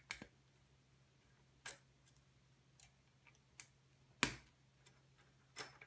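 Scattered light metallic clicks and ticks as a hex key works the screws of the punch support bracket on a Dillon XL650 reloading press, with one louder knock a little over four seconds in.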